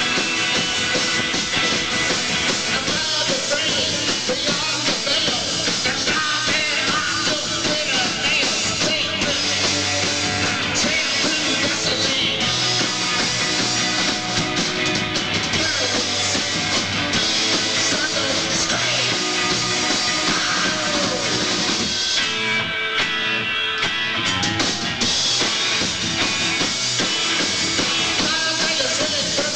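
A rock band playing live with electric guitars, bass and drum kit, with some singing.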